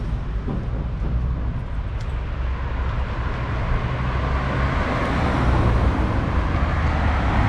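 Car engine running and tyres on the road, heard from inside the moving car: a steady low hum, with road hiss growing louder a few seconds in as the car gets under way.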